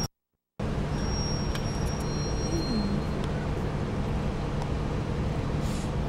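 Steady road and engine noise of a car driving in city traffic, heard from inside the cabin, with a faint high-pitched whine that comes and goes. The sound cuts out completely for about half a second right at the start.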